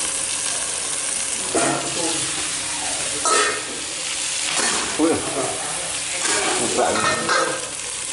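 Food stir-frying in a hot pan: a steady sizzle, with louder strokes every second or two as it is stirred.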